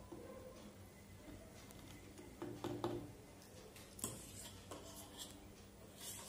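Metal spoon scraping and tapping on a small metal plate while scooping powder: a few faint clinks and scrapes, with a sharper click about four seconds in.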